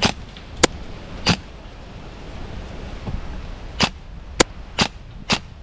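Airsoft DMR firing single shots: about seven sharp pops, three in the first second and a half, then four in quicker succession from about four seconds in.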